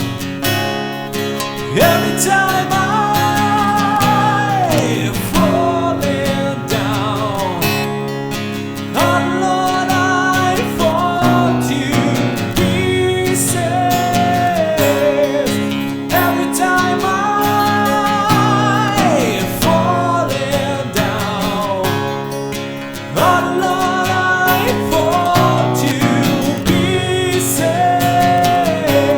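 Acoustic guitar strumming chords under a melodic lead line that bends and slides in phrases of a few seconds: the instrumental break of an acoustic hard-rock ballad.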